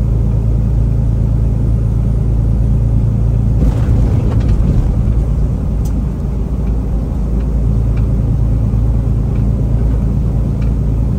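Semi-truck cab interior while driving: a steady low engine drone mixed with road and tyre noise, with a rougher rumbling stretch about four seconds in.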